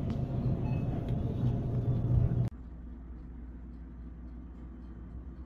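Low vehicle rumble, like a car running, that cuts off abruptly about halfway through and gives way to a much quieter low hum.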